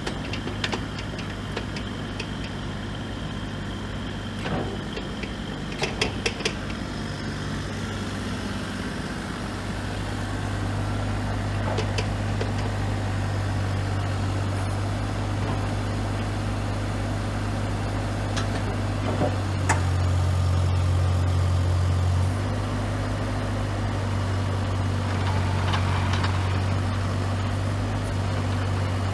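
Bobcat E35 compact excavator's diesel engine running steadily, picking up somewhat about ten seconds in and running louder for a couple of seconds about two-thirds through. A quick run of sharp clicks sounds around six seconds in.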